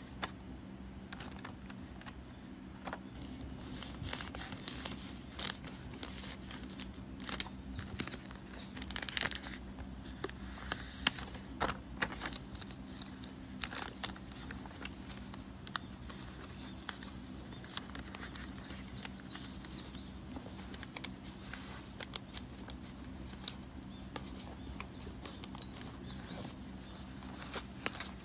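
Paper drawings and the plastic sleeves of a display folder rustling and crinkling as they are handled and turned, with irregular small clicks and taps, over a steady low hum.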